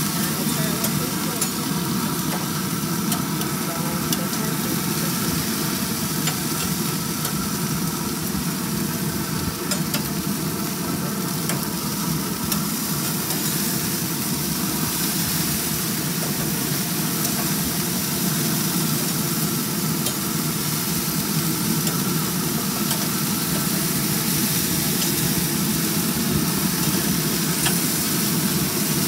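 Hamburger patties and hot dogs sizzling steadily on a grill over a steady low hum, with a few light clicks of tongs and a fork against the grate as the patties are turned.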